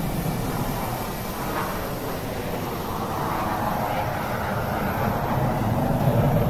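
Jet fighter aircraft in flight: a steady rushing engine noise that grows louder over the last couple of seconds.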